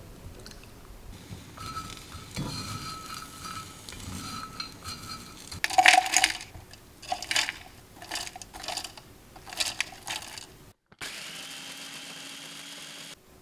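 Dried anchovies clattering into a plastic food-processor bowl in a run of sharp rattles as they are dropped in. About eleven seconds in, the food processor's motor runs steadily, grinding the roasted anchovies into powder.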